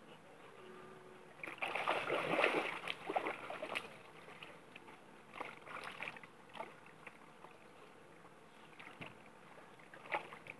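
A dog splashing as it wades through shallow river water. A loud stretch of irregular splashing starts about a second and a half in and lasts around two seconds, with smaller splashes around five to six seconds and one short splash near the end.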